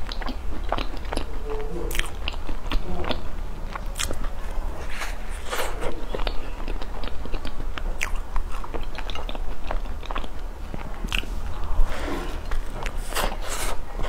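Close-miked biting and chewing of a chocolate crumb-topped cream puff, with many small crackles and clicks through the chewing.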